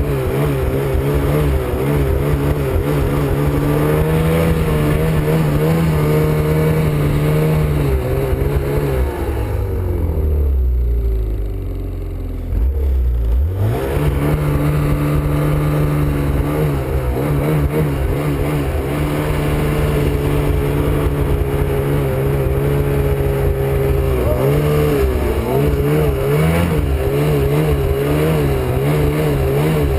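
Snowmobile engine running hard at high revs through deep snow. About nine seconds in the revs fall away and the engine slows for a few seconds, then it revs back up and runs hard again to the end.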